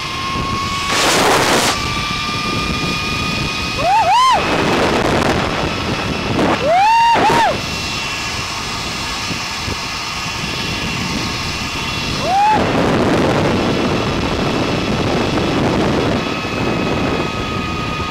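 Zipline trolley pulley whining steadily along the steel cable, with wind rushing loudly over the microphone during the ride. Short, high whoops from a rider cut in about four seconds in, twice around seven seconds, and again near twelve and a half seconds.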